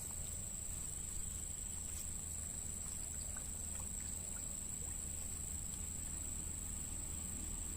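Insects trilling in one steady high-pitched tone, over a low steady rumble, with a few faint ticks.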